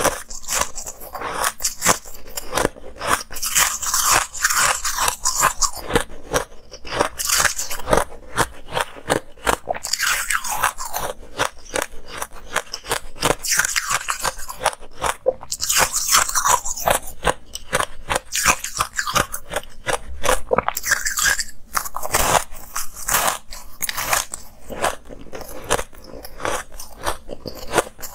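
A person biting and chewing coloured shaved ice packed into domes: a dense run of crisp crunches, several a second, close to the mouth.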